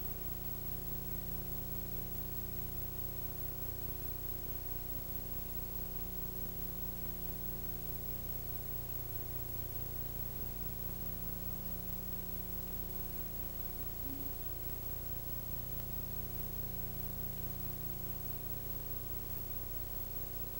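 Steady tape hiss with a low electrical hum from a VHS recording copied through several generations; no other sound stands out.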